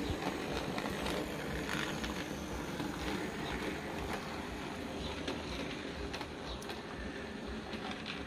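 00 gauge model diesel shunter running along the track hauling its wagons: a steady rattling rumble with faint scattered clicks of the wheels on the rails.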